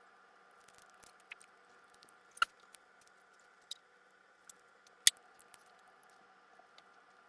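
Eating from a bowl: scattered light clicks of a utensil against the bowl, two of them sharper and louder about two and a half seconds apart, over a faint steady hum.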